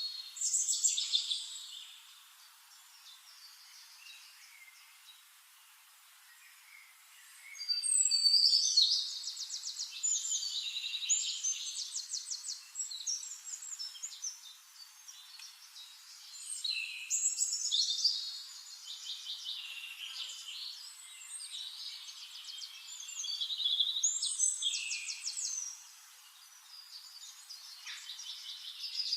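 A songbird singing long, varied phrases of quick trills and whistles, in about five bouts of a few seconds each, with short pauses between them.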